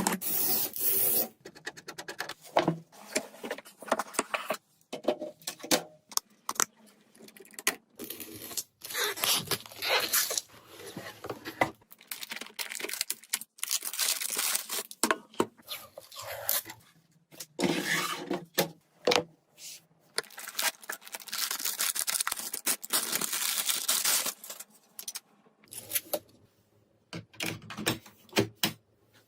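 Computer parts and their packaging being handled: irregular scraping, rustling and tearing with many small clicks and knocks, stopping and starting every second or two.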